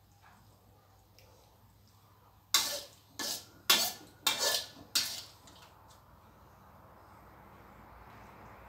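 Metal spatula scraping and clanking against a steel wok about five times in quick succession as the last of the stir-fried noodles is scooped out, each strike ringing briefly. A faint hiss slowly grows near the end.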